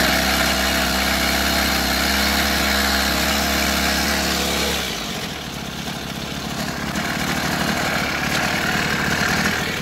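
Maruyama 30cc two-stroke brush cutter engine running just after a pull start. It runs fast on a slightly raised throttle for about five seconds, then drops to a lower, quieter running speed.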